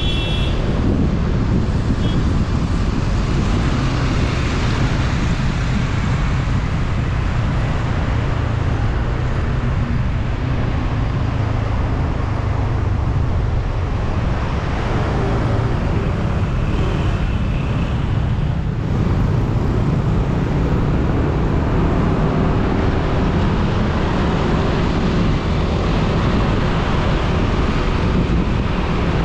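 Steady ride noise on a motorcycle taxi: wind rushing over the microphone, mixed with the motorcycle's engine hum and the surrounding road traffic, the engine pitch shifting slightly now and then.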